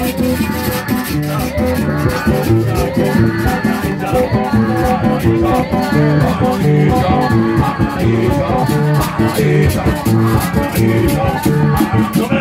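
Live band music: a guitar playing over hand drums and the fast, steady scrape of metal güiras.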